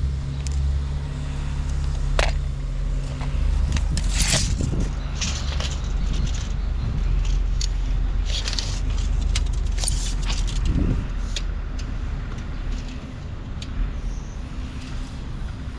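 A motor running steadily with a low hum, with scattered clinks and scrapes over it.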